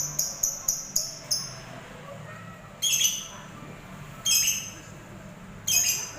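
Lovebird giving three short, harsh calls about a second and a half apart. Before them, in the first second and a half, a rhythmic jingling of about four beats a second stops.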